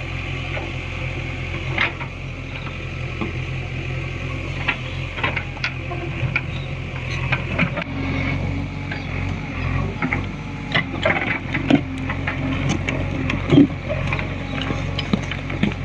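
JCB 3DX backhoe loader's diesel engine running steadily while the bucket works through mud and rock, with scattered knocks and clanks of stone and steel that come thicker in the second half.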